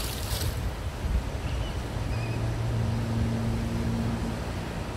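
Wind buffeting the microphone over rushing river current, with a low steady hum from about two seconds in that stops a little after four seconds.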